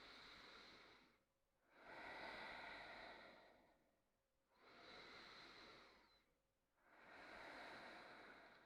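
Slow, deep human breathing, faint: four long, even breaths, each about one and a half to two seconds with a short pause between, taken while holding a yoga twist.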